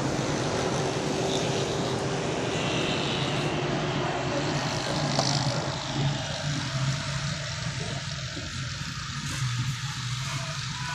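Steady rumble of distant vehicle noise from outside, over a constant low hum. The higher part of the noise eases off about six seconds in.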